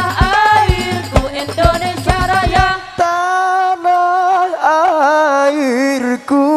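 Habsyi sholawat music: frame drums beat about twice a second under singing, then stop about three seconds in. A voice carries on alone in long, drawn-out notes with ornamented bends and wavering.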